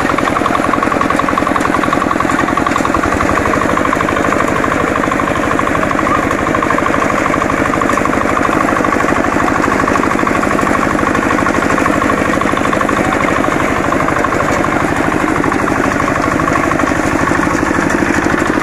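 Walk-behind power reaper's small engine running steadily under load as it cuts standing rice, with a rapid, even firing beat.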